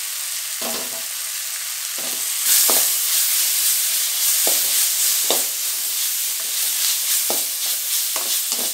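Onions, tomatoes and freshly added ginger-garlic paste sizzling in hot oil in a kadai, being fried to cook off the paste's raw smell. A ladle scrapes and knocks against the pan about eight times as it is stirred. The sizzle grows louder about two and a half seconds in.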